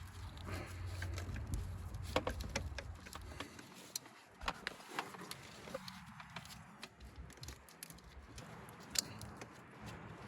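Scattered small clicks and knocks of tools and parts being handled during spark plug work on a car engine, with a low hum that fades about halfway through.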